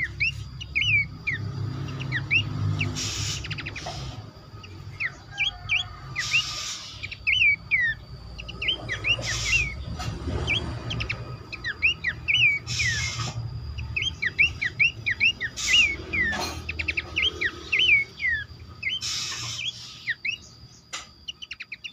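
Pelanduk semak babblers calling: a busy stream of short, sharp, down-slurred chirps, several a second, as in a chorus lure for this species. Several brief rustling bursts and a thin steady high whine run beneath.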